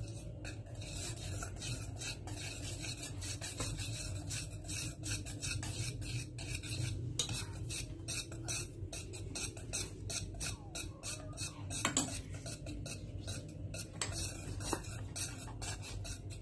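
Wire whisk beating runny cake batter in a stainless steel bowl: continuous rapid clicking and scraping of the wires against the metal, with one louder knock against the bowl about twelve seconds in.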